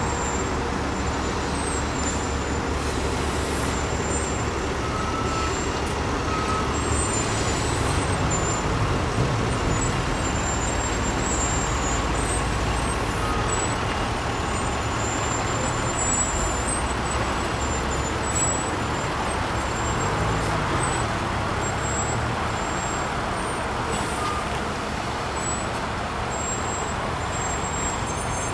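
Diesel engines of Mercedes-Benz Actros heavy-haul trucks running steadily.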